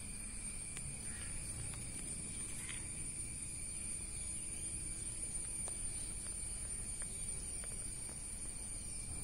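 Steady high-pitched chirring of background insects, with a few faint ticks.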